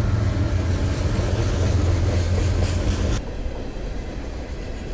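Diesel-electric freight locomotives passing close by, their engines giving a loud, steady low drone. About three seconds in it cuts abruptly to the quieter rumble and rattle of freight cars rolling past.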